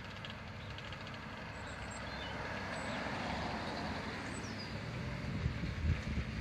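Vehicle noise as a car moves slowly toward a flatbed recovery truck to be loaded: a steady low rumble that grows a little louder around the middle, with a few low thumps near the end.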